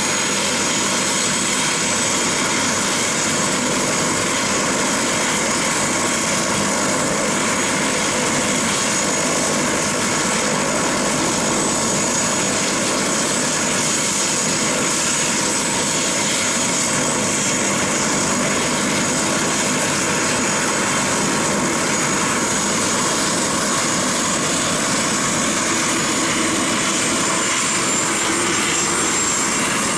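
Aircraft engine running steadily, with a steady high whine that edges up in pitch near the end.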